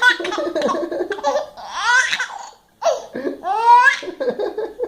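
Baby belly-laughing in bursts, set off by a fake sneeze, with high rising squeals about two seconds in and again near four seconds.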